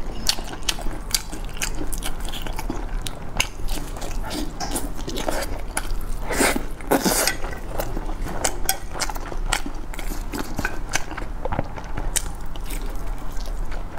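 Close-up biting and chewing of fried eggplant boxes stuffed with chive and egg: many irregular short clicks and mouth sounds, with a louder bite a little past halfway.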